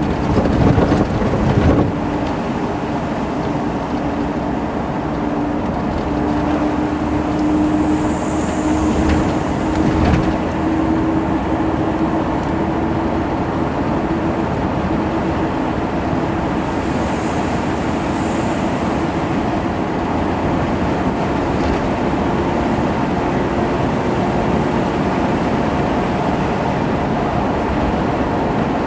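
Car driving on a paved road, heard from inside: steady engine hum and road noise, with a few knocks in the first couple of seconds and again about ten seconds in.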